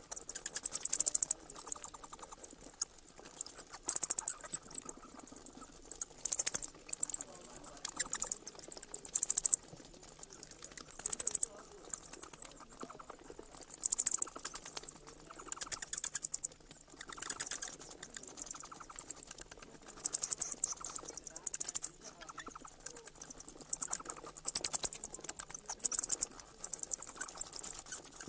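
Night insects trilling: high, rapidly pulsed bursts about one to two seconds long, repeating every couple of seconds.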